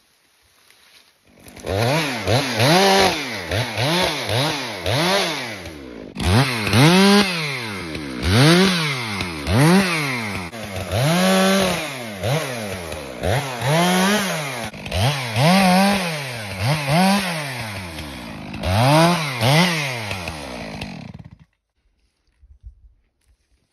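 Stihl MS 462 two-stroke chainsaw cutting a felled Douglas fir, revved up and let back down over and over, each burst rising and falling in pitch about once every second or so. It starts a second or so in and cuts off shortly before the end.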